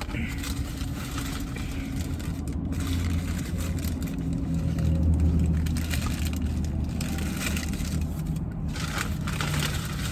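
Close-up rustling and crinkling of a paper food wrapper that comes and goes, over a steady low vehicle rumble that swells about halfway through.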